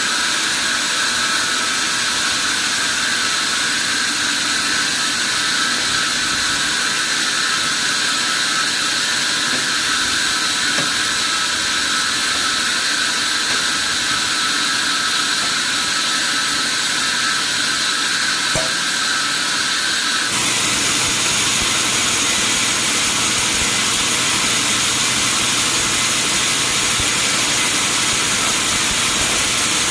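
Sawmill machinery running steadily with a hissing whine. About twenty seconds in, the sound changes abruptly to a different steady machine noise with a low hum.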